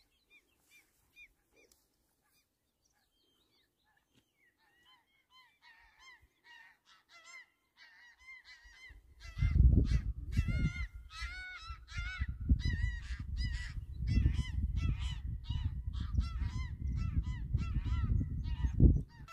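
A flock of geese honking, faint at first and then loud and rapid from about halfway through, agitated at people close by. A loud low rumbling noise runs under the calls from about halfway.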